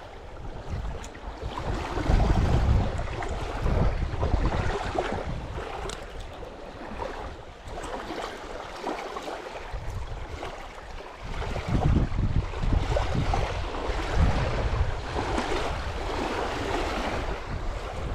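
Wind buffeting the microphone in gusts, strongest a couple of seconds in and again from about ten seconds in, over a steady rushing hiss of wind and water at the shoreline.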